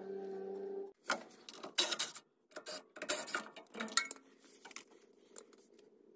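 A steady hum that cuts off about a second in, then a run of sharp metallic clicks and clinks from loose suspension parts being handled, fading to faint rustling near the end.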